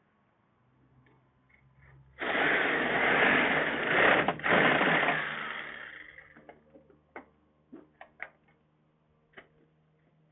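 A handheld power tool runs for about four seconds with a brief stop partway, then winds down, followed by a series of light metallic clicks and taps as parts of an air-conditioner condensing unit are taken apart.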